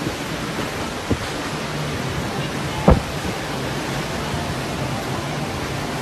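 Strong wind blowing, a steady rushing noise with the wind buffeting the microphone. It is broken by a small knock about a second in and a louder thump near three seconds.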